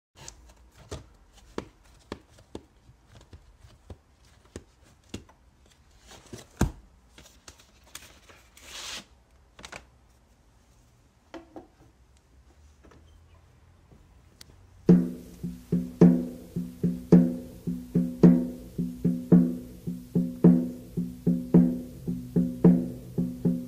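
Vinyl records clicking and knocking as they are flipped through in a crate and handled onto a turntable, with a short rustle partway through. About fifteen seconds in, music starts abruptly: a repeating pitched knocking beat, about two hits a second.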